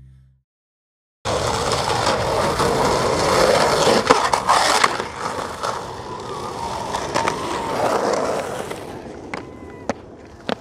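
Skateboard wheels rolling on rough concrete, starting suddenly about a second in, with a few sharp clacks of the board about four seconds in. The rolling grows quieter toward the end, with a couple more clacks.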